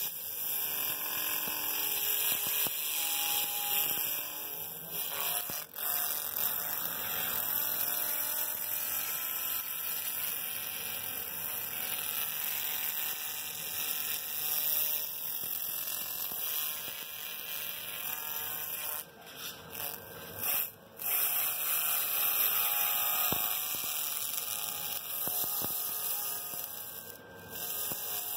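Handheld laser cleaner ablating charred residue from a metal baking tray: a steady high-pitched hissing buzz of the beam working the metal, cutting out briefly a few times about two-thirds of the way through.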